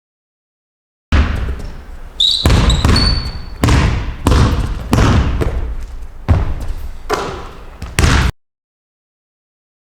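A basketball bouncing on a hard indoor court floor, one echoing bounce roughly every second and a half, with a few sneaker squeaks about two to three seconds in. The sound starts about a second in and cuts off abruptly about eight seconds in.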